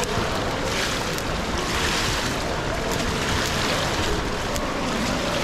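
Steady rushing water noise of an indoor swimming pool, with water lapping and draining in the poolside overflow gutter.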